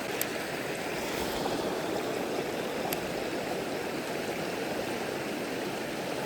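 Mountain stream running slightly swollen, a steady rush of water, with two light clicks, one just after the start and one about three seconds in.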